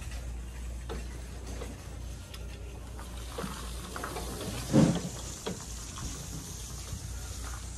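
Wide dust mop pushed across a tiled floor, a steady swishing hiss over a low hum, with a dull thump about five seconds in.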